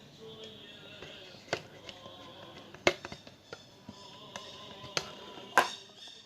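Background music playing quietly, broken by a handful of sharp taps or knocks, the loudest one near the end.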